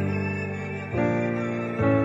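Slow, gentle background music: sustained chords, with a new chord struck about a second in and another near the end.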